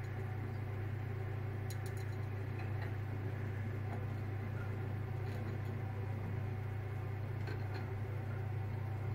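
Steady low machine hum, with a few faint light clicks.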